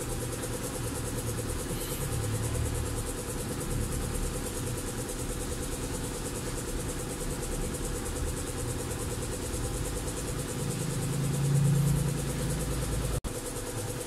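Steady low background hum with a constant faint tone, swelling briefly in low rumble about eleven seconds in.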